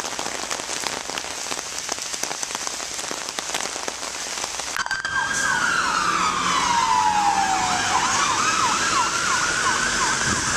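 Heavy rain pattering, with many small drop impacts. About five seconds in, an emergency vehicle's siren starts and gets louder: a slow wail gliding down and then back up, with a faster repeating tone over it.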